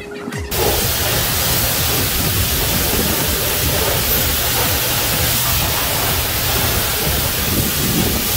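Self-serve car wash high-pressure wand spraying soap, coming on suddenly about half a second in as a loud, steady hiss of water jet with a low hum beneath it.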